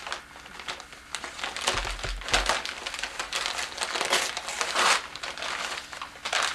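Gift-wrapping paper crinkling and rustling in irregular handfuls as a present is unwrapped by hand, with a brief dull bump about two seconds in.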